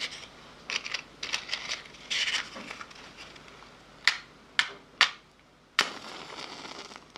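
ASMR mouth sounds: a quick flurry of wet clicks and smacks, then four louder, separate clicks or pops spaced about half a second apart.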